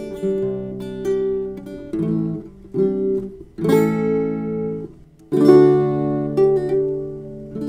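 Background music: strummed acoustic guitar chords, the last one ringing out near the end.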